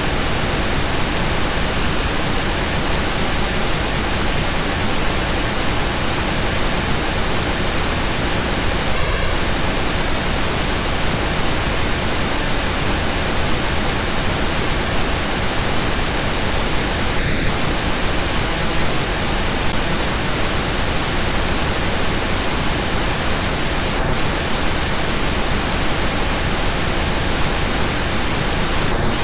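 Steady, even hiss of a relaxation noise track, loud and unchanging, with faint high tones fading in and out every second or two.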